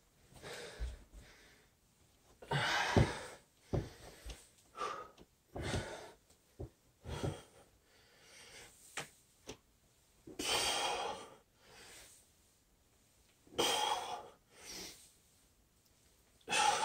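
A man breathing hard from exertion: loud, forced exhalations and gasps every second or two, in time with exercise reps. A few dull thumps come in the first half.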